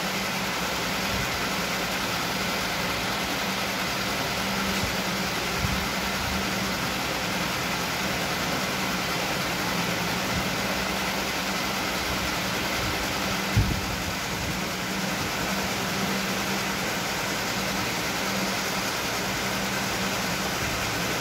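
Aquarium equipment running: the steady hum and hiss of internal power filters and bubbling water. A single low thump about two-thirds of the way in.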